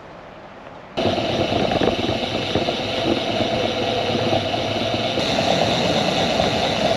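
Faint low hiss for about a second, then a sudden cut to a steady rush of wind on the microphone and tyre noise from a folding mini velo riding along a paved road.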